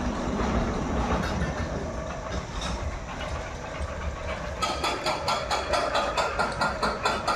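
Small roller coaster train being pulled up its chain lift hill: a steady low rumble, then from about four and a half seconds in a rapid clacking, about five clicks a second, of the lift's anti-rollback ratchet.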